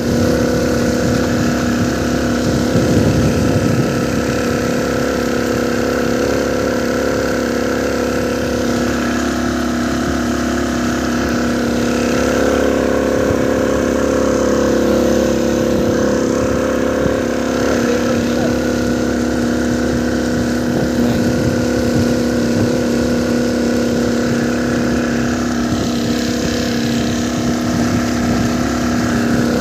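Engine running steadily at a constant speed, an even hum that neither rises nor falls.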